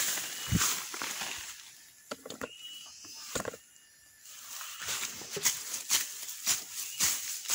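Koret weeding blade chopping and scraping through grass and soil in quick swishing strokes, with a quieter lull partway through before a fast run of strokes about two or three a second.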